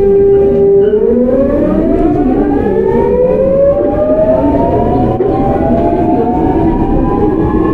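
GEC Alsthom GTO-VVVF traction inverter of a Seoul Metro 8000-series train whining under acceleration. A steady tone, about a second in, gives way to several tones climbing together in pitch, over the steady rumble of the train running on the rails.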